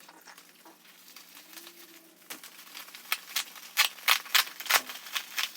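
Packing material being handled and pulled open by hand: quiet rustling at first, then from about two seconds in a busy run of sharp crinkles and crackles.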